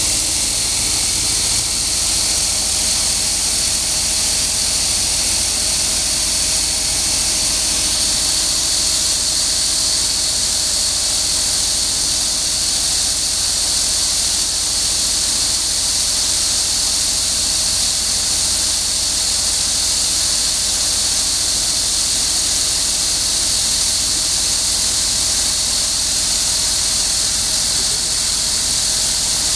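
Small stainless-steel olive paste machine running steadily as it processes olives into paste, separating out the pits and skins: a continuous high hiss over a steady motor hum.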